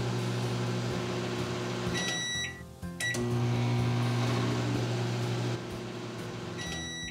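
LG countertop microwave oven running with a steady electrical hum while it heats. A beep sounds about two seconds in and the hum stops briefly. Then a click, and the hum starts again. The hum thins about five and a half seconds in, and the end-of-cycle beeping begins just before the end.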